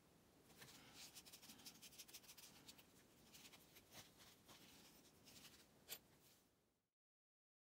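Faint clicks and light scraping of a small wooden dotting tool and paint pots being handled while dot-painting a stone, with one sharper click near the end. The sound then cuts off to silence.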